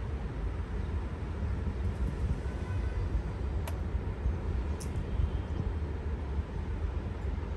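Steady low rumbling noise, heaviest in the bass and unchanging, with two faint brief ticks near the middle.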